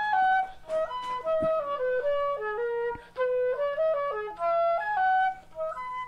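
Music: a slow solo melody played one note at a time, with a couple of short breaks between phrases.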